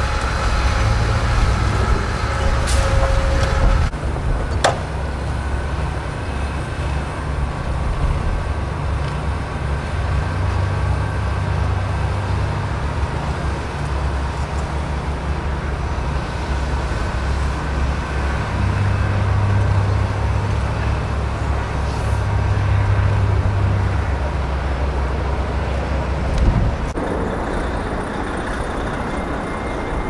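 Heavy vehicles running in a snowbound street: the engines of tow trucks and a stuck city bus make a steady low rumble, with wind gusting on the microphone in blizzard conditions.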